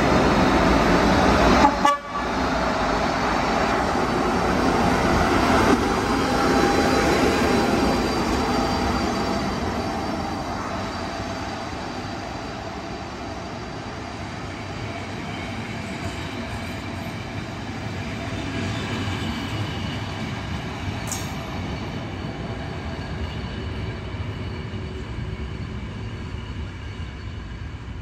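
Electric locomotive hauling a passenger train departs, sounding its horn near the start. The coaches then roll past on the rails, and the noise slowly fades as the train pulls away.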